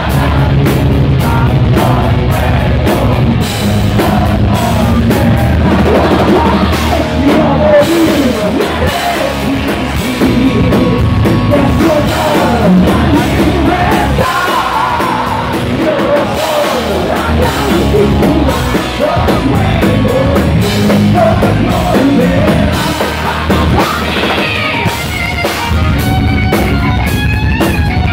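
A heavy metal band playing live and loud, with sung lead vocals over distorted electric guitars, bass and drum kit. Near the end an electric guitar lead with bending notes comes forward.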